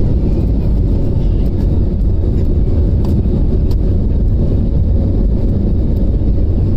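Jet airliner engines running at takeoff power: a loud, steady, deep rumble with a faint steady hum above it.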